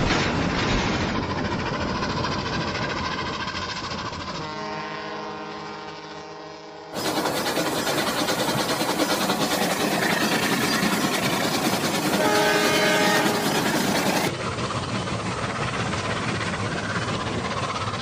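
Train sound effects: a continuous running rumble and clatter, with a long steady horn note from about four and a half seconds that cuts off abruptly at about seven seconds, and a second, shorter horn note around twelve seconds. The sound changes character suddenly twice, at about seven and fourteen seconds.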